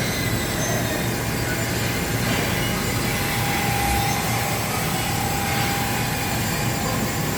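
Hermle C40 U five-axis vertical machining center running: a steady mechanical whir and hiss with a thin high whine that swells in the middle and then fades.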